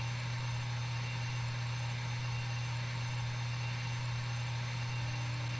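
Steady machine hum with an even hiss over it: the simulated spindle and cutting sound of a CNC milling simulator while the end mill feeds down into the part.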